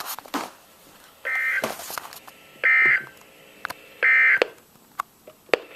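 Three short bursts of buzzing data tones, about a second and a half apart, from a NOAA Weather Radio: the SAME end-of-message code that closes an Emergency Alert System flash flood warning broadcast.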